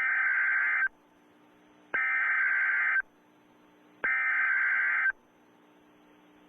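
Emergency Alert System SAME header from NOAA Weather Radio: three bursts of warbling digital data tones, each about a second long and a second apart. The bursts are the coded header that opens a weather alert, here a blizzard warning.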